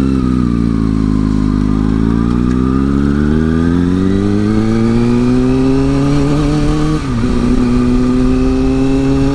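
Motorcycle engine pulling away from a stop, its pitch climbing steadily for several seconds. About seven seconds in it dips briefly, as on an upshift, then holds and rises gently again.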